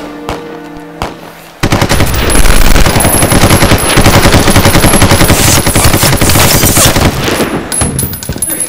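Sustained automatic rifle fire: a rapid, unbroken stream of shots that starts abruptly about a second and a half in, runs for around six seconds, and thins out near the end. Before it, a held string-music chord fades.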